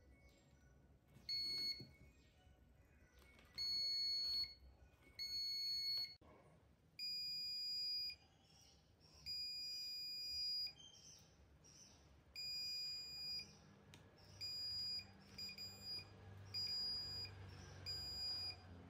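Digital multimeter's beeper sounding about ten times in short electronic beeps of uneven length, each one starting and stopping as the test probes make and break contact on a kit component.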